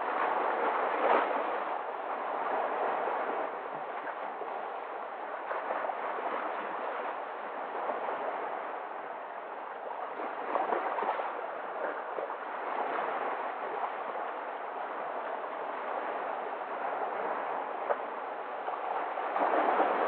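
Small sea waves breaking and washing over a rocky shore: a steady rush of water that swells into louder splashing surges about a second in, twice in the middle, and again near the end.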